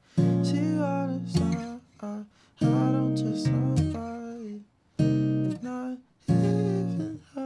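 Guitar played in slow strummed chords, about five in all, each chord ringing out and fading before the next is struck.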